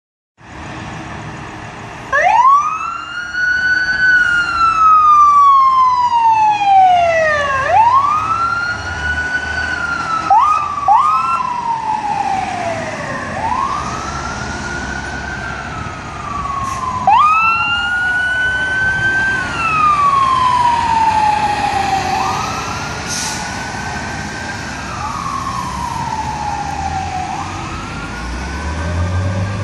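Fire engine siren wailing, winding up quickly to a high pitch and slowly falling away, over and over, with a few short quick chirps around ten seconds in. A low rumble builds near the end.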